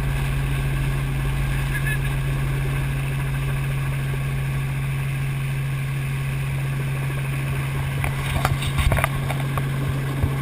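Helicopter in flight: a steady, loud drone of rotor and engine with a constant low hum under it. A few irregular knocks come in near the end.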